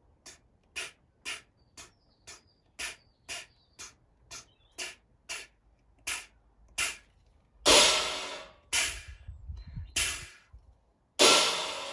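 Beatboxed cymbal-stack sound: short, hissy 'tss' strokes made by forcing air through clenched teeth with a silent 'D', about two a second. Then come louder, longer trashy crashes that ring out, the loudest about two thirds of the way in and again near the end.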